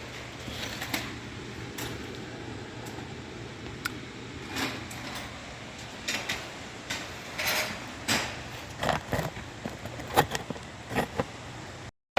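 Steady low hum of a shop, then from about halfway through, irregular light clinks and knocks of metal tools being handled.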